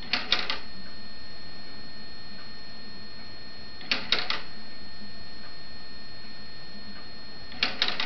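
LEGO wheel escapement ticking: each beat is a quick cluster of about three plastic clicks as the escapement releases and catches. Three beats come about four seconds apart, one at the start, one near the middle and one near the end.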